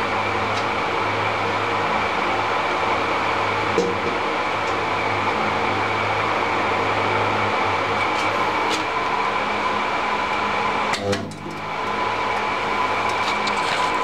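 Portable table spot welding machine humming with a steady electrical drone and whir, its mains hum weakening for a few seconds in the middle and returning. A few light clicks and a knock about eleven seconds in as the brass pot is handled against the copper electrodes.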